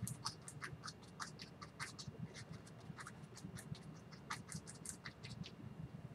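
Paintbrush stroking oil paint onto a canvas: a quick, irregular run of short, faint scratching strokes that stops about five and a half seconds in.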